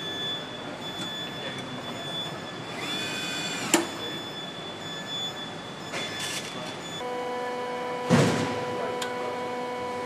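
Car assembly-line factory noise: steady machine hum with a thin whine, which shifts to a lower set of steady tones about seven seconds in. A brief rising whine ends in one sharp clank about four seconds in, and a short burst of rushing noise comes around eight seconds.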